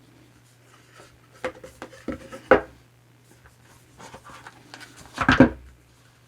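Hands handling a tarot deck's paper and card packaging: a few soft knocks and rubs about one and a half to two and a half seconds in, then a louder clatter about five seconds in, over a steady low hum.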